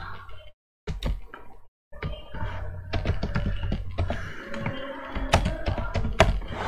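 Typing on a computer keyboard: a run of irregular key clicks and taps over a steady low hum.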